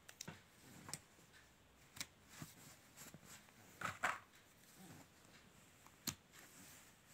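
Plastic connector sketch pens clicking and tapping against each other as they are pushed together and lined up in a row. There are light, irregular clicks, with a louder cluster about four seconds in and another sharp click near six seconds.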